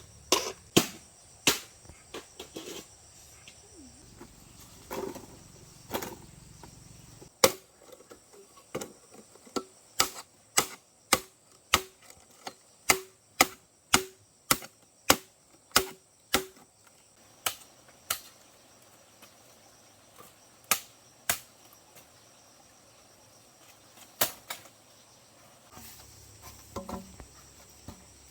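Repeated blows of a hand tool on bamboo or wood, heard as sharp knocks. In the middle they fall in a steady run of about two a second for several seconds; before and after they are more scattered.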